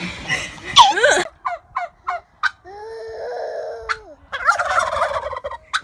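Domestic fowl calling: a run of short calls, a longer held call, then a noisy burst of calling near the end.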